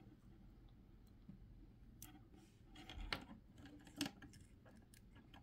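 Faint clicks and light rubbing of fingers handling a small circuit board and its loose pouch battery, with a sharper click about four seconds in.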